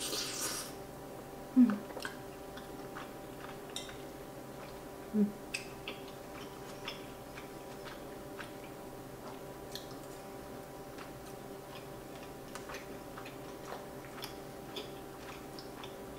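Close-up eating sounds: pasta slurped off a fork at the start, then soft chewing with many small mouth clicks and light fork taps. Two brief, louder low mouth sounds come about a second and a half in and again about five seconds in, over a faint steady hum.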